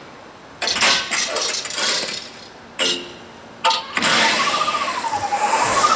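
Sound effects from a Christmas light show's soundtrack: several sudden noisy bursts, then from about four seconds a steady rushing noise with a single wavering tone sliding up and down.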